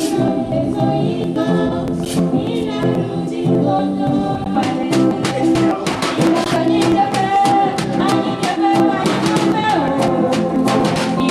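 Voices singing together to a quick beat of percussion strikes.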